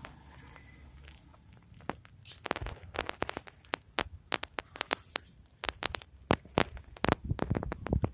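Footsteps on a paved path: a run of sharp, irregular taps and clicks that starts about two seconds in and grows busier toward the end.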